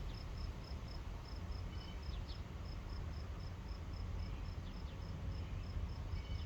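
Cricket chirping faintly in an even, high-pitched rhythm, several chirps a second, over a low steady background hum.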